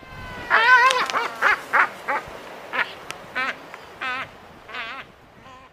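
Waved albatrosses calling during a courtship display: one long wavering, warbling call about half a second in, followed by a string of shorter wavering calls with a few sharp clicks between them.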